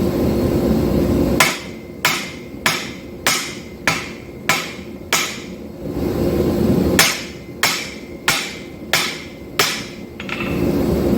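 Two runs of evenly paced hammer blows on steel at an anvil while forging a knife, about one and a half strikes a second, each with a short ring. The first run has seven blows and the second, after a short pause, has five. Under and between them runs a steady rushing noise.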